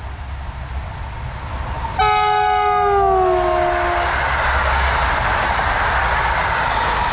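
EU160 electric locomotive's horn sounding about two seconds in: a chord of several tones held for about a second that then drops in pitch as the locomotive goes past. Then the steady rushing and wheel-on-rail noise of the passenger coaches passing close by.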